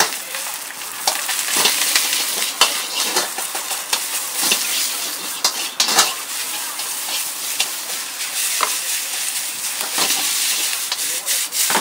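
Food sizzling in a hot wok as greens, bean sprouts and noodles are stir-fried, with a metal ladle scraping and knocking against the wok at irregular intervals.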